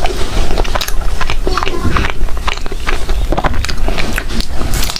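Close-up eating sounds: a person chewing food with many quick, irregular wet mouth clicks and smacks.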